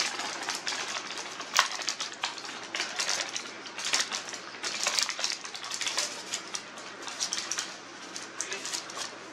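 A sheet of paper shaken and flapped by hand, rustling and crinkling in quick irregular bursts, with one sharper snap about a second and a half in.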